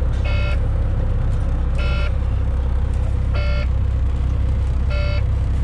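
Semi truck's diesel engine idling just after a cold start, with a cab warning alarm beeping four times, about once every second and a half: the low air pressure warning, sounding while the air brake system builds pressure.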